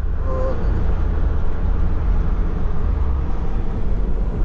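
Car driving along a road: a steady low rumble of engine and tyres.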